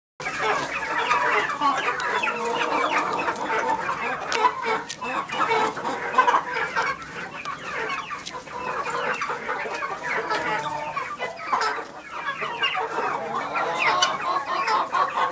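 A small flock of chickens, black Leghorn hens among them, clucking continuously with many short overlapping calls while foraging, with scattered small clicks in between.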